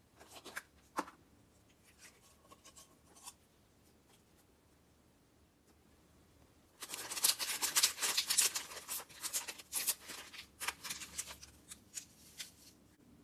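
A few light clicks from a glass jar with a plastic lid being handled, then, about seven seconds in, a paper candy packet (Fun Dip) crinkling for about four seconds as it is handled and opened, followed by a few scattered crackles.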